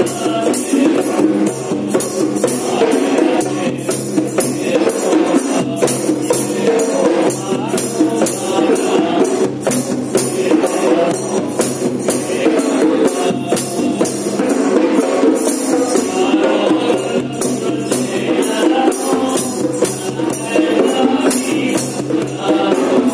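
Two sets of conga drums played by hand together in a fast, steady rhythm.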